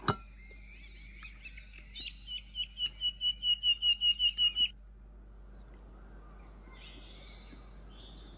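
A small bird chirping in a quick run of short, even chirps, about four a second, growing louder for a couple of seconds, with fainter calls near the end. A sharp click comes right at the start.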